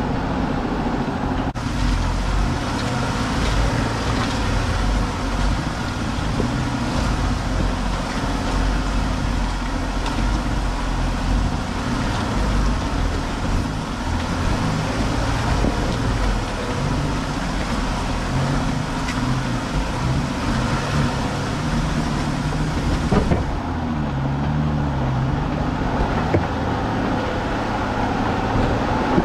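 Off-road vehicle running slowly over a rocky dirt trail: a steady low engine rumble with scattered light knocks, the sound changing abruptly about a second and a half in and again about 23 seconds in.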